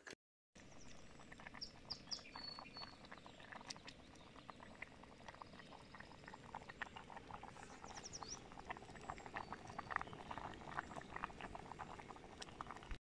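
Chicken and cauliflower rice boiling in a small pot on a canister gas stove: faint, many small irregular pops and bubbles, growing busier toward the end.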